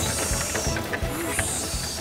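Cartoon background music with a steady beat, with a high hissing sound effect over it twice.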